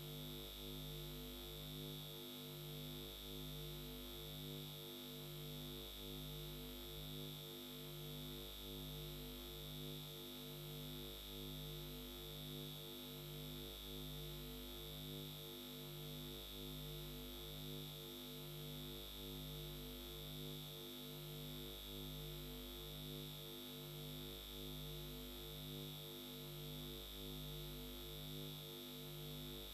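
Faint steady electronic synthesizer drone: low tones pulse evenly a little faster than once a second over a deeper slow swell, with a constant high-pitched whine above.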